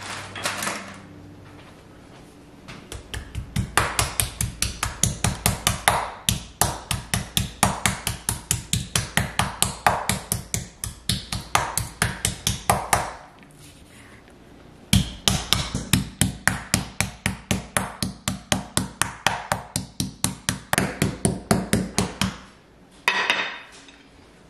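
Metal meat mallet pounding a boneless pork chop flat on a bamboo cutting board: quick, even blows, about three a second, in two long runs with a pause of about two seconds between.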